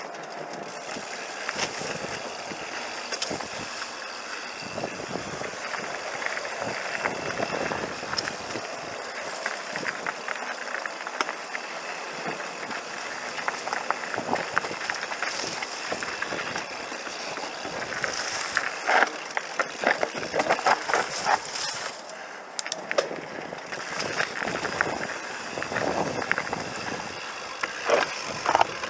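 Mountain bike riding down a rocky, stony dirt trail: tyres running over dirt and loose stones, with constant clatter and rattling from the bike. It is roughest and loudest about two-thirds of the way through.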